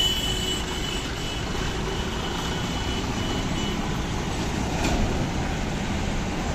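Slow-moving truck traffic: heavy truck engines rumbling as the vehicles creep along, with a high-pitched vehicle horn held for about two seconds at the start, then sounding in short toots until about four seconds in.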